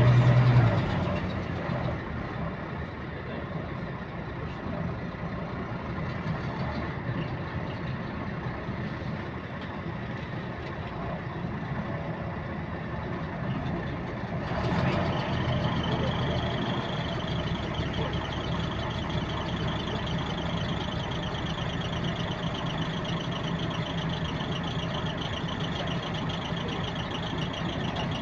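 Bus engine running, heard from inside the bus, with a repetitive clicking that keeps time with the engine speed. About halfway through, the sound grows louder and a higher whine comes in and stays.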